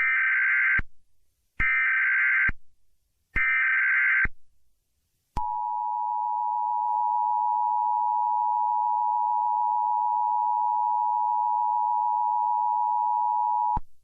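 Emergency Alert System tones: three short bursts of SAME header data, the buzzy digital screech that encodes the alert, each under a second. Then comes the EAS two-tone attention signal, a steady dual tone held for about eight seconds that cuts off suddenly.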